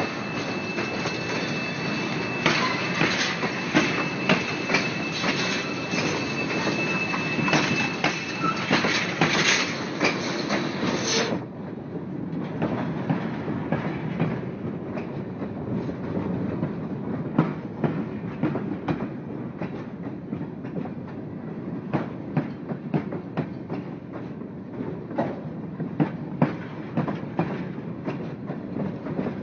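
A train running on its rails: a steady rumble with irregular clicks and clacks. About eleven seconds in, a thin steady whine and the bright hiss cut off abruptly, leaving a duller rumble.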